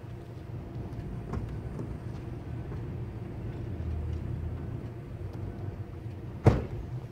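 Steady low motor rumble running throughout, with one sharp knock about six and a half seconds in.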